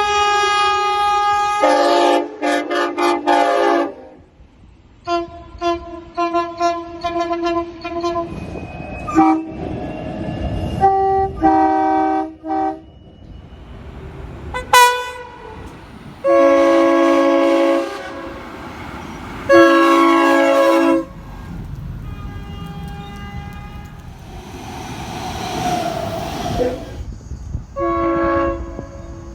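Locomotive air horns sounding chords of several notes at once: a series of separate horn soundings from different trains, some as quick runs of short toots and two as longer blasts past the middle, with train running noise between them.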